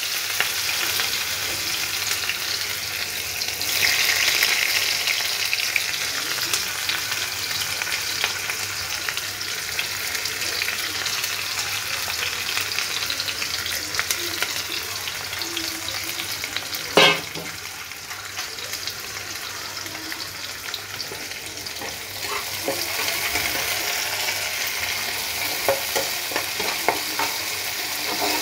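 Chopped onions frying in hot oil in a pan, sizzling steadily, with the sizzle swelling twice as the pan is stirred. A single sharp knock comes a little over halfway through, and scattered clicks of the utensil against the pan come near the end.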